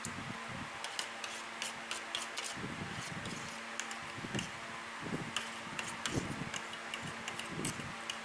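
Steady mechanical hum like a running electric fan, with scattered light clicks and a few soft knocks.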